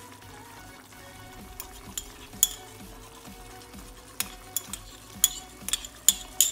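Metal spoon clinking and scraping against a small ceramic bowl as chopped ginger is knocked out into a pot of chicken adobo. A few sharp clinks about two seconds in, then a quick run of them, two or three a second, over the last two seconds.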